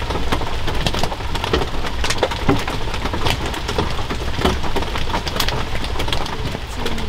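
Heavy rain falling on a camping shelter, heard from inside as a dense, steady patter of drops on the fabric, very loud.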